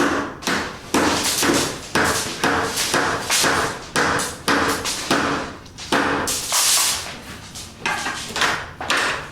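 Hammering on a building site: repeated sharp blows, about two a second, each ringing briefly.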